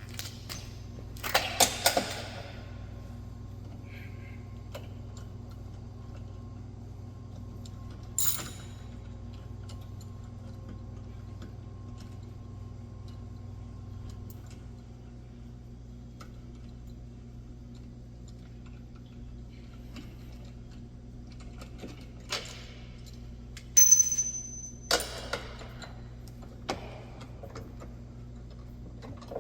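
Scattered metallic clicks, clinks and rattles of hand tools and bolts as the bumper's mounting hardware is worked loose, with a clatter about two seconds in, another near eight seconds and a busier run of sharp clacks near the end, over a steady low hum.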